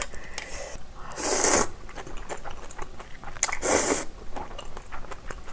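Instant ramyeon noodles slurped up from chopsticks: two loud, hissy slurps about two and a half seconds apart, each about half a second long, with small wet chewing clicks between.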